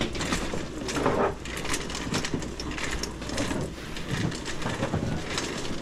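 Busy open-air street-market ambience: a steady bustle of indistinct voices, footsteps and frequent small clatters and knocks, with no single sound standing out.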